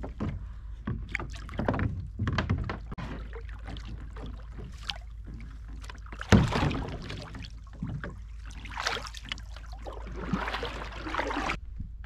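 Paddling a plastic sit-on-top fishing kayak: paddle blades dipping and splashing in the water, with scattered knocks against the hull. A sharp knock about six seconds in is the loudest.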